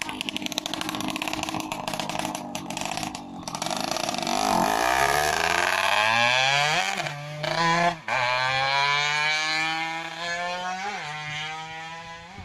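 Underbone motorcycle engine running with a fast rattle, then revved up about four seconds in and held at high revs, with short blips of the throttle, before it drops back near the end.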